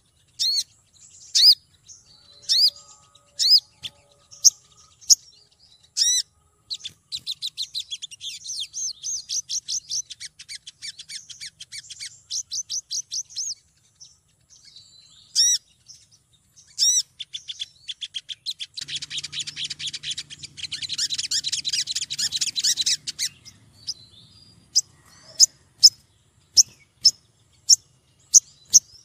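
Female olive-backed sunbird calling: single sharp, high chirps about once a second, then long rapid trills of chirps, a dense chatter about two-thirds of the way in, and a regular run of sharp chirps near the end. These are a female's calls to attract a male.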